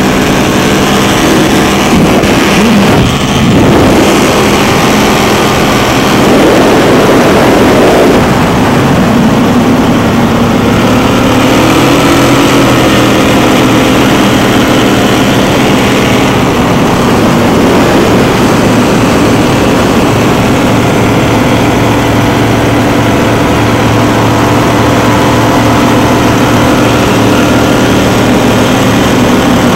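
Donzi ZR go-fast powerboat engines running hard at high speed over a rush of water. The engine note shifts in pitch a couple of times, dipping and rising about three seconds in and climbing again near the twelve-second mark.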